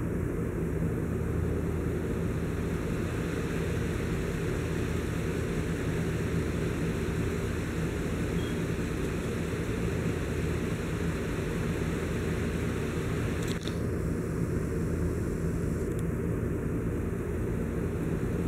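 Steady low rumbling hum that holds even throughout, with one brief faint click about two-thirds of the way through.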